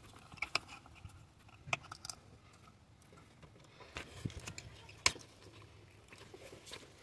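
Plastic wiring-harness plugs being pushed onto ignition coils: a few scattered clicks and knocks, the sharpest about five seconds in.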